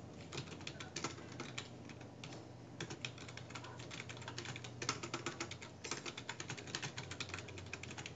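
Typing on a computer keyboard: faint, quick, irregular keystroke clicks with a few short pauses, as a chat message is typed out.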